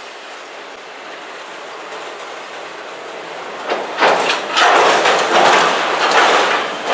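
Freight train's autorack cars rolling past close by, a steady rumble of wheels on rail. About four seconds in it becomes a much louder, uneven clatter of wheels and rattling cars.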